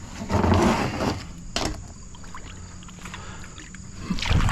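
A kayak being moved through river water: a loud splashing wash in the first second, a sharp knock about one and a half seconds in, and another splash near the end.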